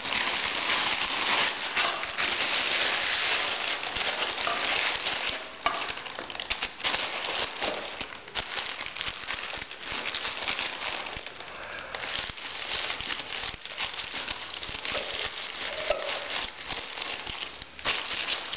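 A clear plastic bag crinkling and a nylon stuff sack rustling as they are handled and stuffed together: a dense crackling hiss for the first few seconds, then more broken, with many separate sharp crackles.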